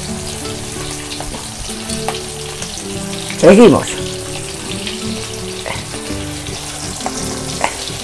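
Breaded beef patties frying in hot oil in a large pan: a steady sizzle.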